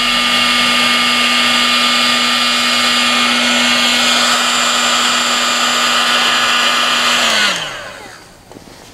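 Heat gun running, its fan blowing with a steady hiss and hum; about seven seconds in it is switched off and the motor winds down, the hum falling in pitch as it fades.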